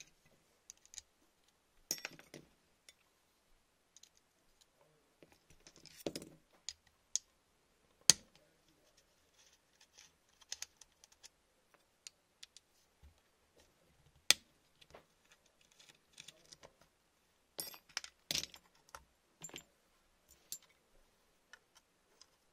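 Scattered clicks, taps and small rattles of an airsoft electric gun's receiver and internal parts being handled while it is taken apart. Two sharp clicks stand out, about eight and fourteen seconds in, with a quick run of clicks a few seconds before the end.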